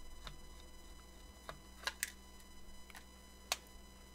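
Faint, scattered clicks of a small Phillips screwdriver turning a tiny screw out of a GPS unit's circuit board, with one sharper click about three and a half seconds in, over a faint steady hum.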